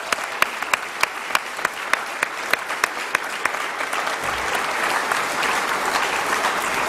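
Audience applauding. In the first half one pair of hands near the microphone claps loudly and evenly, about three times a second, over the general clapping. From about four seconds in, the applause thickens and grows louder.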